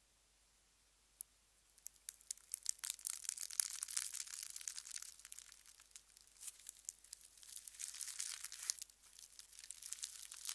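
Slime being squeezed and pulled by hand, giving dense crackling and popping with little gaps, after a single click and a near-silent start; there is a short lull near the end.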